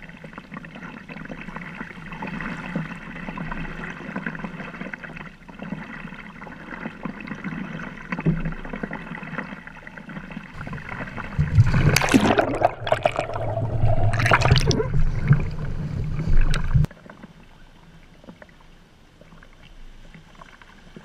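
Water lapping and splashing around a sea kayak as it is paddled through shallow water. Past the middle comes a much louder rushing, gurgling stretch of several seconds that stops abruptly, and then the water is quiet again.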